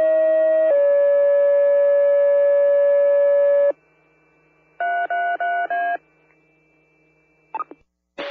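Fire dispatch radio paging tones: a two-tone sequential page, a short first tone of about a second, then a longer, slightly lower second tone of about three seconds. About five seconds in comes a quick series of short alert beeps, then a brief radio click near the end, ahead of the dispatcher's voice.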